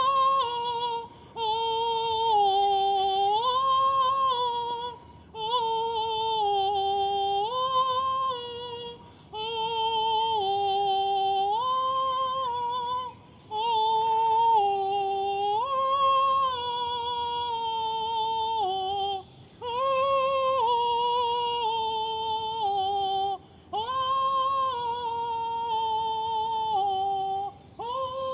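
A woman singing wordlessly in a high, held voice, in phrases of a few seconds that step up and down between a few notes, with short breath pauses between them.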